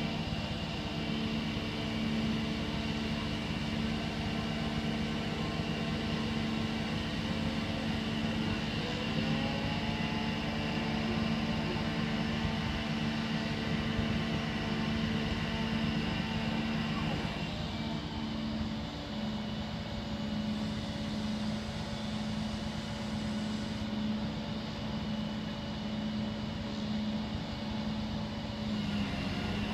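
Crane engine running steadily under load, a low droning hum, as the suspended pump column is lowered into place. Its pitch glides upward about nine seconds in, and the sound shifts again a little past halfway.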